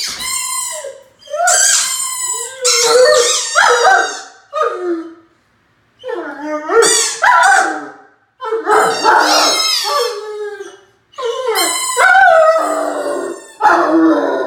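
Great Dane puppy howling: several long howls in a row with short pauses between them, each wavering up and down in pitch.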